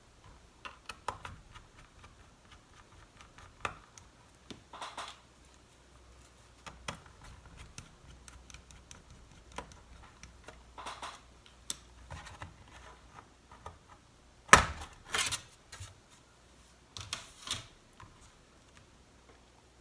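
Small clicks, taps and short scrapes of hand-tool work on a laptop: a MacBook Pro's back cover being opened with a pentalobe screwdriver and its parts handled. About fourteen seconds in comes the loudest, a sharp clack, followed by a few more short clatters.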